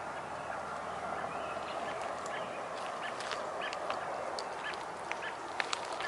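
Birds giving short, repeated calls over a steady background hiss, with a few sharp clicks near the end.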